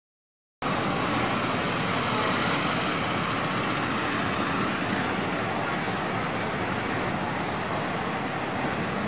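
Busy city street traffic: a steady din of buses, cars and trucks running, cutting in suddenly about half a second in.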